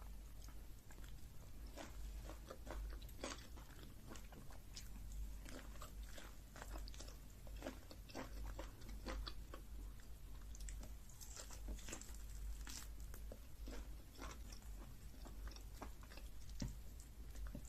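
Close-up eating sounds of a person chewing and biting fufu, vegetable soup and chicken: many short, irregular mouth clicks and crunches over a low steady hum.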